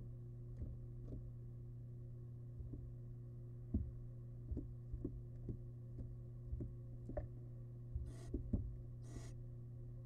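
Barn owl chicks shifting and feeding on the litter of a wooden nest box: a string of soft, irregular knocks and thumps over a steady electrical hum. Near the end a chick gives two short hisses, the barn owl nestling's begging call.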